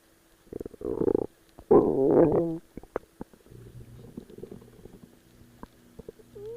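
Stomach growling: short gurgles about a second in, a louder gurgle wavering in pitch around two seconds in, then a long, quieter low rumble.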